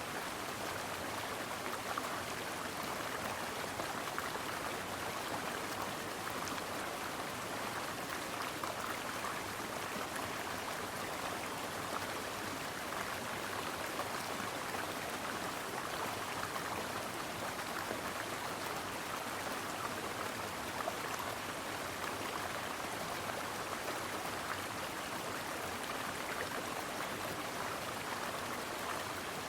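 A brook of running water flowing steadily, an even rush without pauses or changes.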